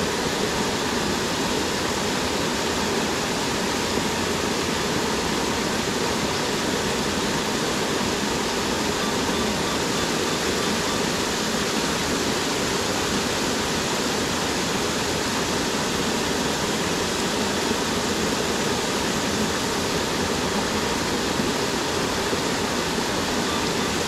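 Buderim Falls waterfall: water pouring down and splashing in a steady, even rush that does not change.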